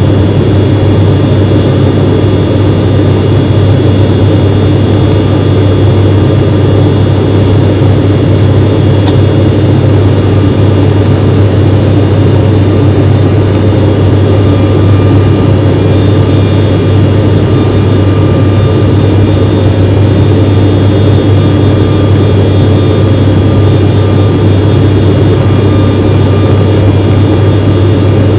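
Jet aircraft in flight: engine and airflow noise as a loud, steady roar with a strong deep hum and a few faint, steady high whines, unchanging throughout.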